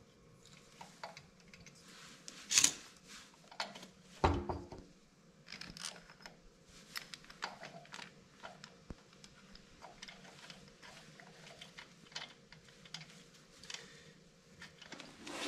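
Small metal and plastic engine parts clicking and knocking as a carburetor is handled and fitted back onto a small two-stroke generator engine, with two louder knocks about two and a half and four seconds in.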